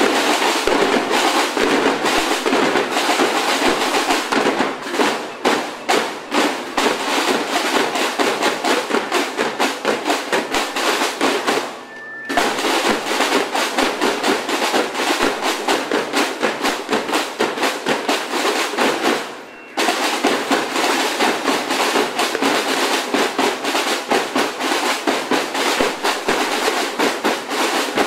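Youth drum corps of snare drums and a bass drum playing a fast, continuous rhythm together, with two short breaks, about twelve and nineteen seconds in.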